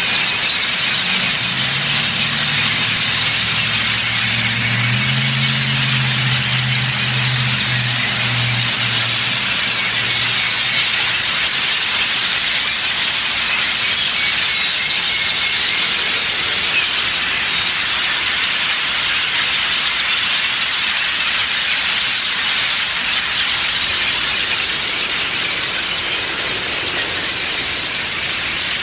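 A large flock of great-tailed grackles calling all at once: a loud, unbroken, high-pitched cacophony of many overlapping calls. A faint low hum lies underneath for the first ten seconds or so.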